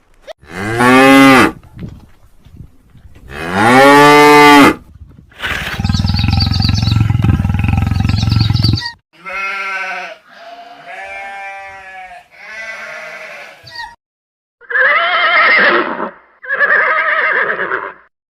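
A run of about eight separate animal calls, one after another, each a second or two long, with a longer, louder call about six seconds in that lasts some three seconds.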